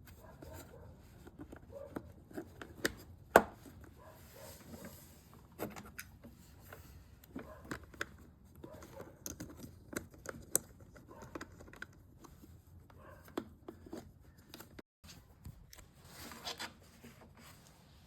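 Small handling noises: scattered clicks, taps and rustling, with one sharp click about three and a half seconds in.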